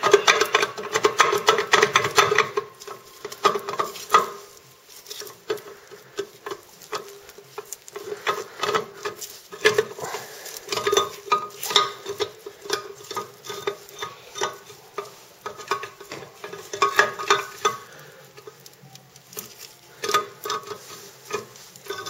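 Steel gears and loose parts clinking and rattling against the case of a 1948 Chevrolet three-speed manual transmission as a hand works the countershaft gear cluster free inside it. The clinks are irregular, with busier flurries near the start and again about halfway and near the end.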